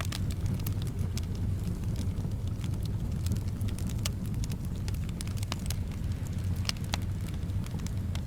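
Wood fire in a fireplace crackling, with irregular sharp pops and snaps, over a steady low rumble of soft wind.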